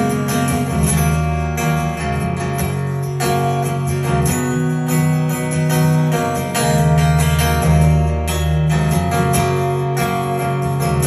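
Live guitar-led music playing an instrumental passage with no singing: strummed guitar over sustained low bass notes, with a steady beat of strokes.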